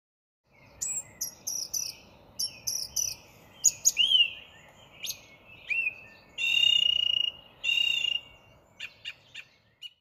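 Birdsong: a string of short chirps and quick whistled notes, with two longer held notes about six and a half and eight seconds in, over a faint steady hiss.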